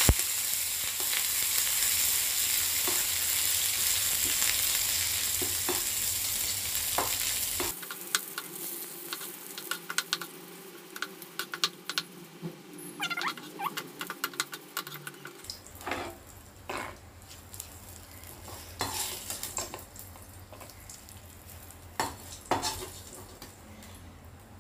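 Dried red chillies and curry leaves sizzling loudly in hot oil in a small kadai, stirred with a wooden spatula. About eight seconds in the sizzle drops to a faint hiss, and the spatula's scrapes and taps against the pan stand out.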